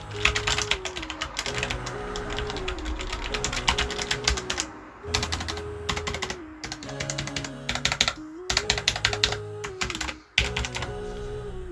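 Fast typing on a Logitech MX Mechanical Mini low-profile keyboard with tactile quiet switches: a dense run of key clicks, broken by a few short pauses. Background music plays underneath.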